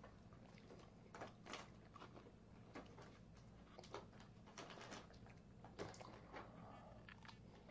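Near silence with faint, scattered clicks and scrapes of a plastic spoon scooping kimchi fried rice from a plastic lunchbox.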